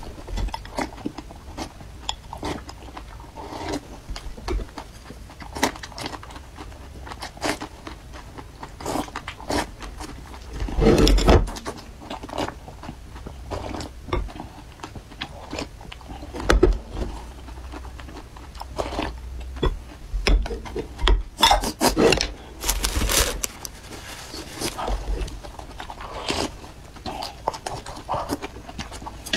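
Close-miked eating sounds: slurping spicy chili broth from a bowl and chewing, with chopsticks clicking against the bowl. Louder slurps come about 11 seconds in and again from about 21 to 24 seconds.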